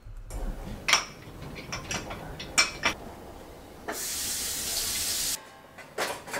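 Kitchen sink washing-up: a few clinks of dishes and utensils, then a tap runs for about a second and a half and is turned off suddenly.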